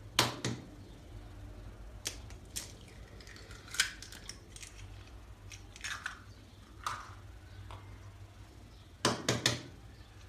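Raw eggs being cracked by hand: scattered sharp taps and cracks of eggshell, with a quick run of three taps about nine seconds in as an egg is struck and broken open.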